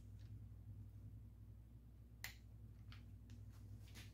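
A click-type torque wrench on a small-block Chevy connecting-rod bolt gives one sharp click about two seconds in: the bolt has reached its set torque of 30 ft-lb, the second of three steps toward 45. A few fainter ticks of metal follow, over a low steady hum.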